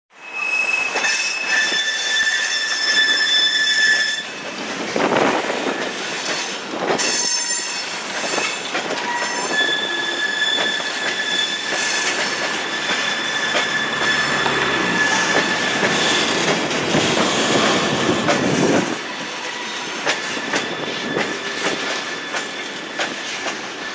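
Steel wheels of a rail vehicle squealing against the rails, with long, steady high-pitched squeals over a grinding rumble and scattered clicks. The squeal eases off about four seconds in and returns strongly near ten seconds.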